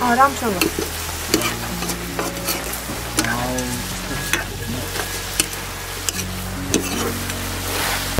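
Goat curry sizzling as it fries in a pan, stirred with a metal ladle that scrapes and clicks irregularly against the pan.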